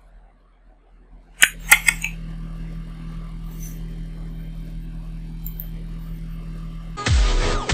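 A few sharp clicks about a second and a half in, then a steady low hum; electronic music starts near the end.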